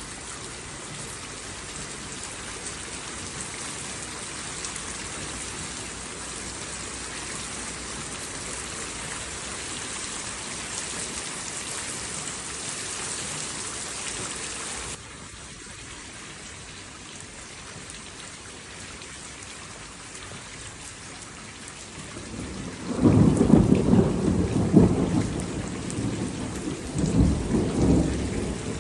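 Steady heavy rain that turns abruptly to a softer hiss about halfway through, then near the end a loud, low rumble of thunder that rises twice over about six seconds.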